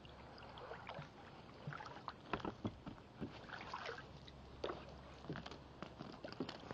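A kayak being paddled on calm lake water: faint, irregular splashes and drips from the paddle blades.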